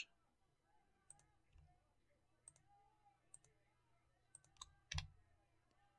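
Faint, sparse clicks of a computer mouse and keyboard, about six in all and irregularly spaced, the strongest about five seconds in, over quiet room tone.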